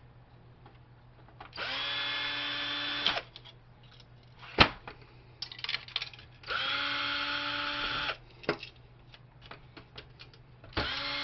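A power drill-driver backing screws out of a printer's frame in three runs of about a second and a half each, each a steady whine. Between the runs come scattered clicks and clatter of parts being handled, with one sharp knock about four and a half seconds in.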